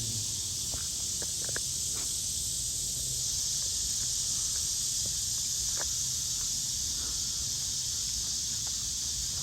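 Cicadas calling in a steady, high hiss, in full chorus, with a few faint short ticks over it.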